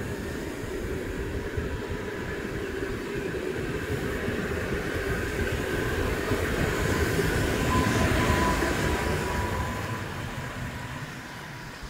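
Koleje Dolnośląskie 45WE (Newag Impuls) electric multiple unit passing close by: a steady rumble of wheels on rails with a thin high tone above it. It grows louder to a peak about eight seconds in, then fades.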